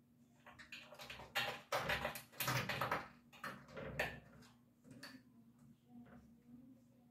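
Aluminium sliding window rattling and scraping in its frame as a cat pushes and paws at it to slide it open: an irregular run of knocks and scrapes, loudest from about one to four seconds in, then fainter.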